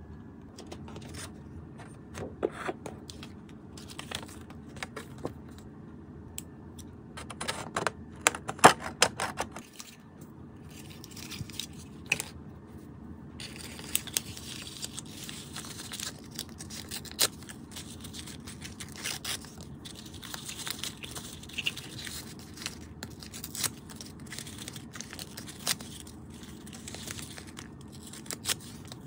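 Hands handling paper and washi tape: sheets sliding and tapping on a desk, tape being peeled and torn, with scattered light clicks and rustles and a cluster of louder rustling about eight to nine seconds in.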